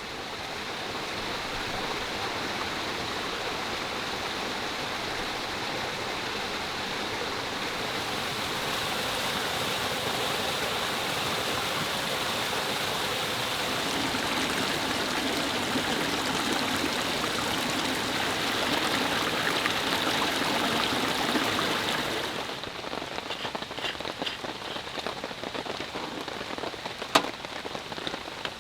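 Rain falling steadily in a dense hiss. About 22 seconds in it thins to scattered, separate drops with a few sharp taps.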